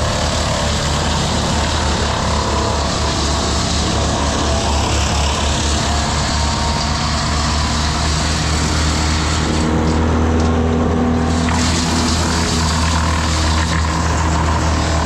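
Engine of tree-work machinery running steadily, with a deep, pulsing low hum.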